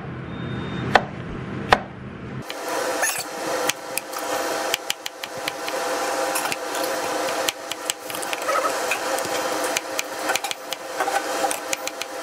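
Chef's knives chopping bell peppers on a plastic chopping board: a run of sharp knife taps against the board. A low background hum cuts off suddenly about two and a half seconds in, after which the taps come faster and closer together.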